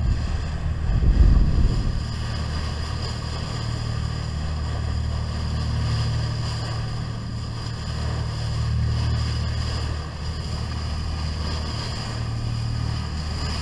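Boat under way: the engine runs with a steady low hum while the bow wave rushes and splashes along the hull and wind buffets the microphone, with a brief louder gust about a second in.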